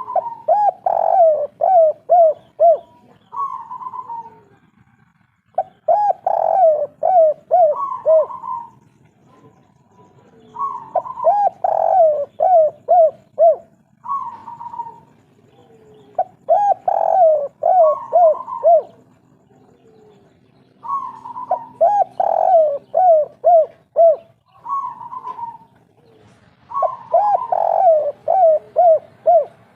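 Spotted dove (derkuku/tekukur) singing the 'kuk 3' song, one phrase about every five seconds, six times. Each phrase is a rising opening coo, then a quick run of short falling coos, then a last separate coo.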